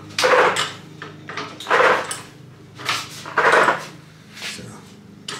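Red hydraulic floor jack being pumped under the car, a clattering stroke about every second to second and a half, raising the middle of the chassis to relieve tension on the cage mounts.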